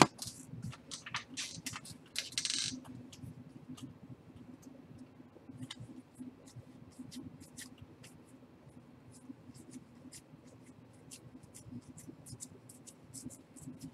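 Trading cards being handled during a box break: light ticks and clicks as cards are flipped and set down, with a brief swish about two seconds in, over a faint steady hum.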